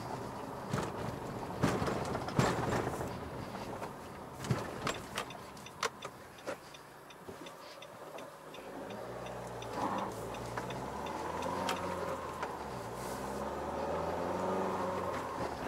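Inside the cabin of a 2017 Nissan X-Trail 1.6 dCi, with the four-cylinder turbodiesel running low and a few sharp knocks in the first seconds. Midway there is a run of regular turn-signal ticks while the engine is quiet. Then, about nine seconds in, the engine note comes up and grows louder as the car pulls away.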